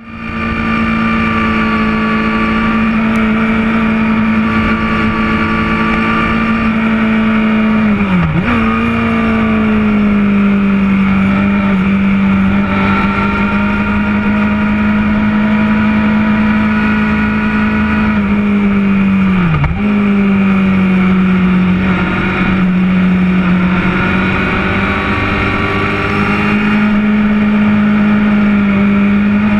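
Sport motorcycle engine running at high revs on a racetrack, with wind rush. Its pitch drops sharply and comes straight back up twice, about eight and twenty seconds in.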